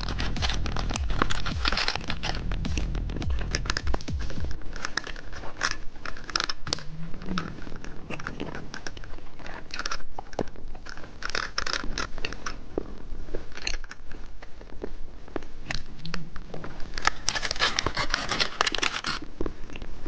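Close-miked eating of sweet candy: sharp crunches and clicks with repeated crackling, crinkling bursts, with background music that stops a few seconds in.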